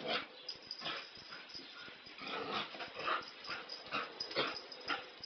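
A dog barking in a run of short barks, about eight over five seconds with brief gaps between them.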